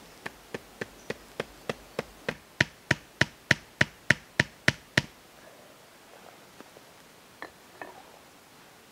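Quick, even hammering knocks, about three a second, growing louder and stopping after about five seconds. A little rustling and two faint clicks follow near the end.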